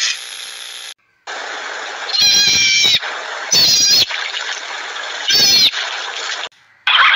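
Three drawn-out, high animal calls over a steady background hiss, the first the longest and each shorter than the last.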